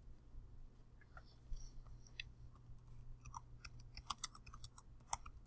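Faint computer keyboard typing and mouse clicks: a few scattered keystrokes at first, then a quicker run of them in the second half, over a low steady hum.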